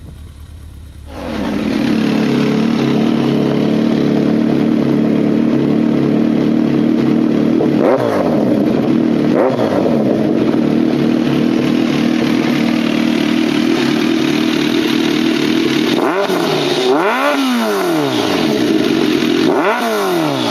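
Kawasaki ZRX1200 inline-four idling loudly through an aftermarket titanium slip-on muffler, after a quieter first second. The throttle is blipped twice about midway, then revved several times in quick succession near the end, the pitch rising and falling with each blip.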